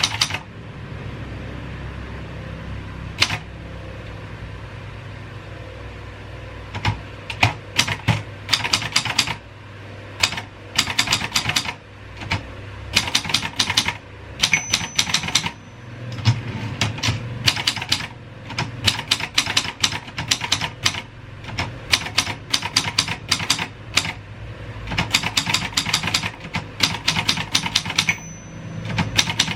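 Royal 202 manual typewriter being typed on: runs of rapid key strikes with short pauses between them. The first several seconds hold only a stray strike or two before steady typing begins.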